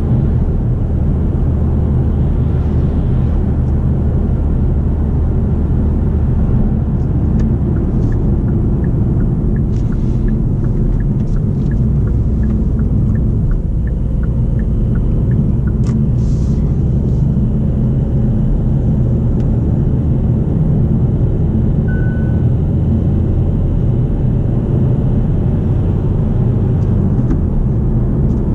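Kia XCeed 1.6 CRDi four-cylinder diesel heard from inside the cabin while driving: a steady low engine and road rumble. An even run of faint ticks sounds for several seconds midway, and a single short beep comes later.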